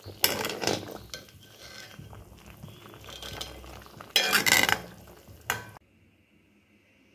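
Metal ladle stirring and scraping against a black iron karahi of bubbling chicken curry. The clatter comes in two spells, one just after the start and one about four seconds in, with a short knock after it.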